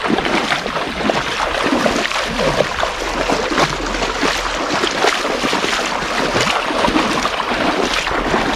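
People wading through shallow river water, with steady sloshing and splashing of legs and feet moving through the water.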